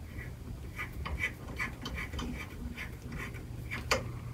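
Light clicks and ticks, several a second, of a wrench turning a set screw into a threaded hole in a bow riser, with one sharper click about four seconds in.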